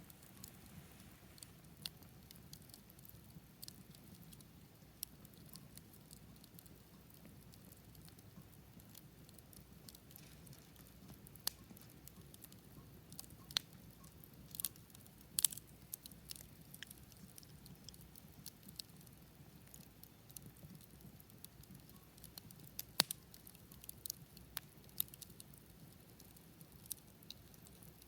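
Campfire crackling: irregular sharp pops and snaps of burning wood over a faint low rumble, with a few louder snaps in the second half.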